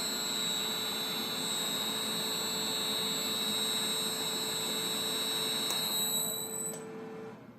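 Electric motor running in reverse on a frequency inverter: a steady high-pitched inverter whine over a broad motor hum. Both cut off about seven seconds in as the drive stops.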